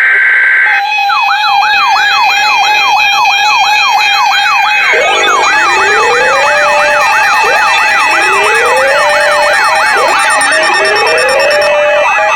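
Emergency alert siren tones announcing a severe thunderstorm warning. After a brief steady high beep, several electronic sirens are layered: a fast up-and-down sweep about three or four times a second over a steady tone. About five seconds in, a slower rising whoop joins, repeating every two seconds.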